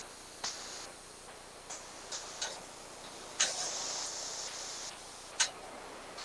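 Handling noise from a camera being set up close to the microphone: irregular sharp clicks, the sharpest about five seconds in, with short stretches of hiss between them.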